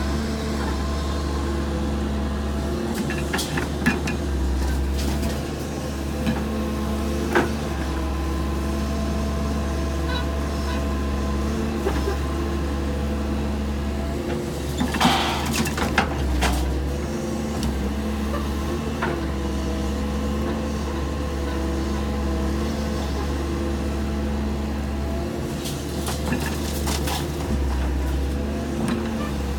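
Doosan excavator's diesel engine running steadily with a low, even drone. Scattered sharp knocks and a brief hiss about halfway through.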